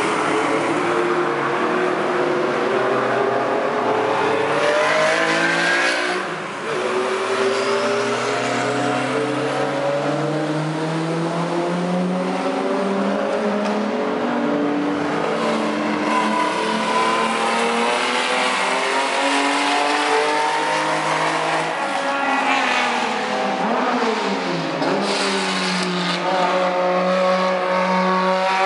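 Several classic race cars' engines running hard around a circuit, several engine notes at once. Pitch climbs through the gears and drops on the downshifts as cars come past.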